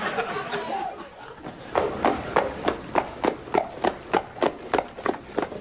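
Regular footfalls, about three a second, starting a little under two seconds in, after a brief murmur of voices dies away.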